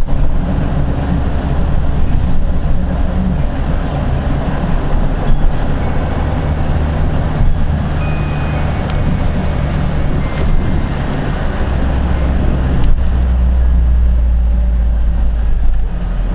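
Inside a minibus driving in heavy rain: a steady low engine and road rumble with an even hiss of rain on the bodywork and windscreen. The rumble swells for a few seconds near the end.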